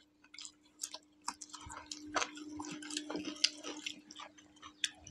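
Close eating sounds: two people chewing tehari and working the rice with their fingers on their plates, making irregular small clicks and wet smacks. A faint steady hum lies under them.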